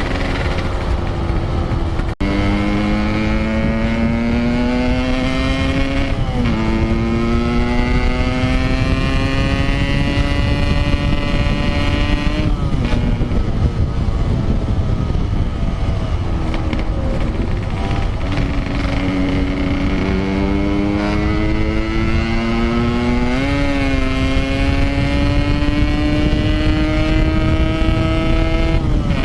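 Yamaha RX King two-stroke motorcycle engine with a Packing Power exhaust, running on the road: the pitch climbs slowly and drops back several times, as at gear changes, with wind rushing past underneath.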